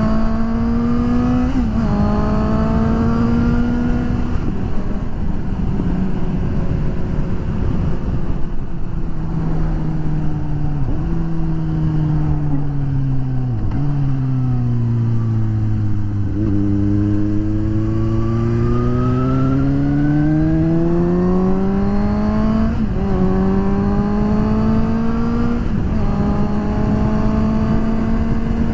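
Suzuki GSX-S750's inline-four engine on the move, with heavy wind rush on the microphones: it accelerates and shifts up about a second and a half in, then eases off with two downshifts to low revs around the middle. It pulls up through the revs again, shifts up near the end and settles into a steady cruise.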